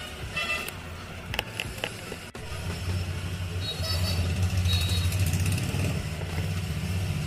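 A battery sprayer's small electric pump switches on about two seconds in and runs with a steady low hum. It is preceded by a few handling clicks.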